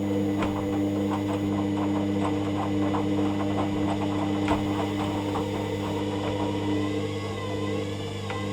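Hoover Dynamic Next washing machine running its rinse-and-spin programme: a steady motor hum with quick, light clicks about three times a second for the first few seconds, then a wavering whine near the end.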